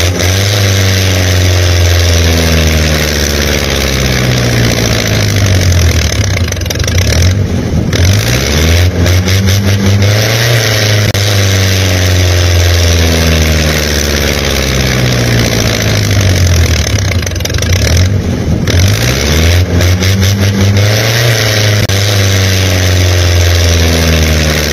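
Engine running loudly and steady, revving up and down several times.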